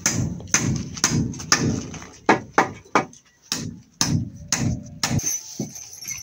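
Hand hammer striking timber, a steady run of blows about two a second, typical of nailing wooden formwork boards; the blows stop a little past five seconds in.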